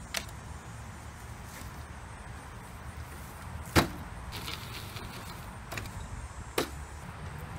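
Folding plastic picnic table with attached benches being unfolded and set up: a few sharp clacks and knocks as its parts swing out and settle, the loudest about four seconds in, over a low steady rumble.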